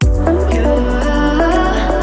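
Background music starting abruptly: electronic music with a sustained deep bass and a melody of held notes.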